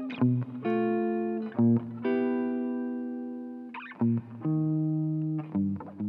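Clean semi-hollow electric guitar playing slow chords with low notes underneath. Each chord is struck and left to ring and fade before the next, about seven in all.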